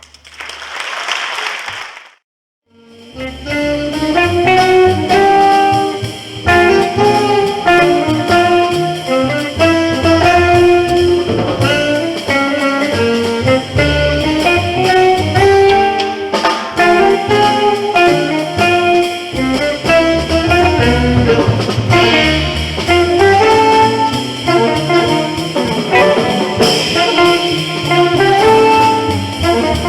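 Live jazz quartet playing a ballad, a horn carrying the melody over bass and drum kit. It opens with a brief burst of noise and a moment of silence before the band comes in.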